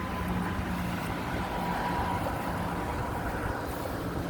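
Steady low rumble with a faint, even hum, like a motor or engine running.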